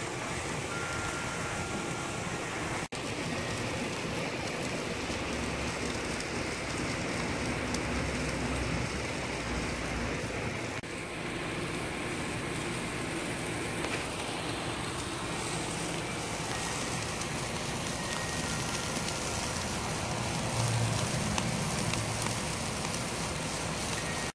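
Steak sizzling on the grate of a charcoal kettle grill, a steady hiss that cuts out for an instant about three seconds in. A low rumble sits underneath at times.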